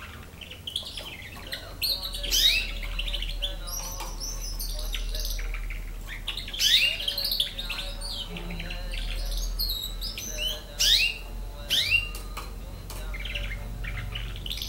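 Nine-month-old domestic canary singing: a varied run of chirps and rising and falling whistled notes, with a few louder sharp notes scattered through it.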